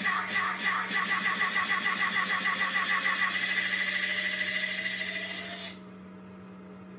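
Electronic dance music playing from a TV: rapid, evenly repeated hits, about four or five a second, under a slowly rising synth tone, like a build-up before a drop. It cuts off suddenly near the end, leaving only a low steady hum.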